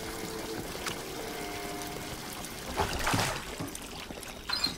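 Water running from a bathtub tap into a clawfoot tub in a steady stream, with a louder burst of noise about three seconds in.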